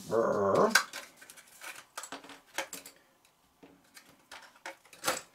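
Game cards and packaging being handled on a tabletop: a run of small, irregular clicks, taps and rustles.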